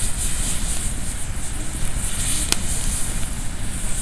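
Wood campfire burning with a steady hiss and one sharp crackle about two and a half seconds in, over a low rumble.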